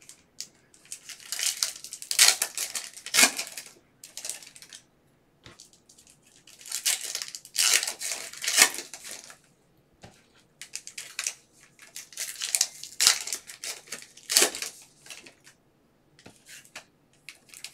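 Plastic wrappers of Panini Prizm basketball cello packs being torn open and crinkled by hand, in several bursts of crackling with short pauses between.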